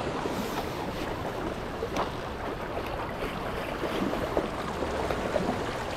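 River water washing and splashing around a kayak hull, with wind noise on the microphone; a steady rushing with no letup.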